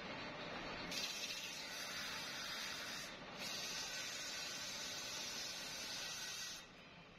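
Hand-held abrasive pressed against the inner rim of a cast truck brake drum spinning in a lathe, giving a steady hiss in two spells with a short break about three seconds in. It stops shortly before the end.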